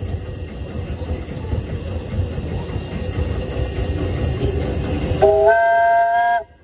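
A 1975 Crown Metal Products 24-inch gauge propane-fired steam locomotive rolls along with a steady low rumble. About five seconds in, its whistle blows a single chord of several notes for just over a second, stepping up in pitch as it opens and cutting off suddenly.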